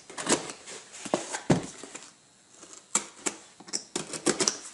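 Box cutter scraping and slicing through packing tape on a cardboard mailing box: irregular sharp clicks and scrapes, with a short quiet pause about halfway through and a quick cluster of clicks near the end.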